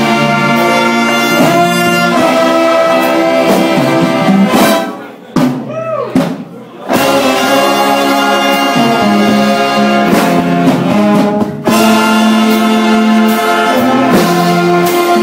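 Jazz big band playing, with trumpets, trombones and saxophones over bass and drums. About five seconds in, the full band drops out for a short quieter break with a few sliding notes, then comes back in at full strength.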